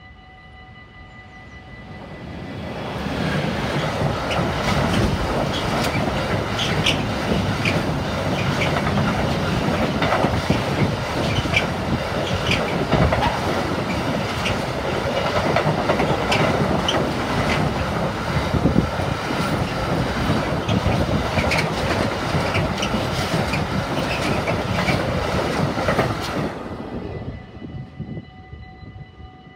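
A Traxx locomotive and a long container freight train pass close by. The wheels clatter over the rail joints with many sharp clicks over a steady rumble; the sound builds about two seconds in and falls away near the end. Level-crossing warning bells ring steadily before and after the train.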